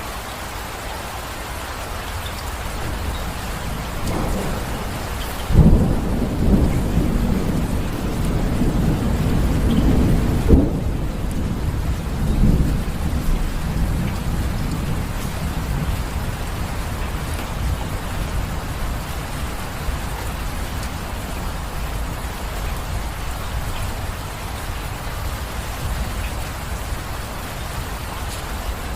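Steady rain falling, with a roll of thunder that breaks in sharply about five seconds in, rumbles on for several seconds and fades out, leaving the rain alone.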